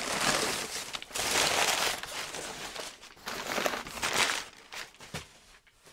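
Crumpled brown kraft packing paper crinkling and rustling as it is pulled out of a cardboard box by hand. It comes in two main spells and dies away near the end.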